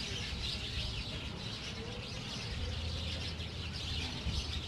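Birds chirping in a dense, continuous chatter, over a steady low rumble.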